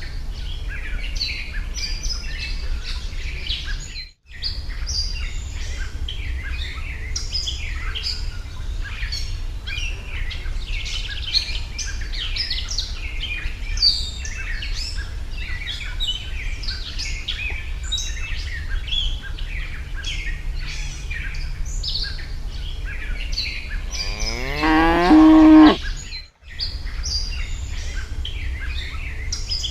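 Many small birds chirping steadily over a low rumble. About 24 seconds in, a cow moos once for about two seconds, rising in pitch; it is the loudest sound. The sound cuts out briefly twice.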